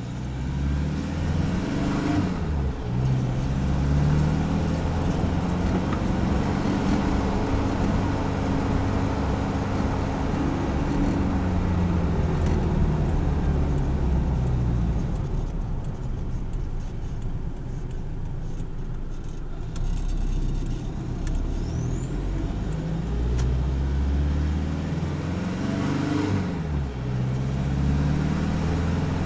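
Isuzu KB300's 3.0-litre four-cylinder turbo-diesel engine and stock exhaust under way, heard from beneath the truck. The engine note climbs and drops back several times as it accelerates and changes gear, with a faint high whistle rising with the revs.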